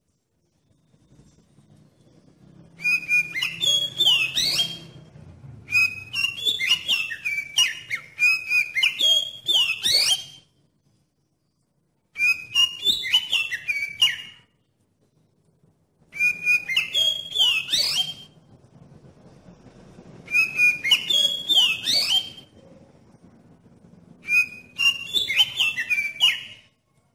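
Oriental magpie-robin (kacer) singing loudly in seven rapid, varied phrases of about two seconds each, separated by short pauses. It is in full song, the kind of bait song used to set other magpie-robins singing.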